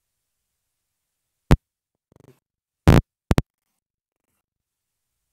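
Four brief knocks out of dead silence, a ruler and paper being handled and set down on a tabletop: one about a second and a half in, one about three seconds in, then two quick ones right after.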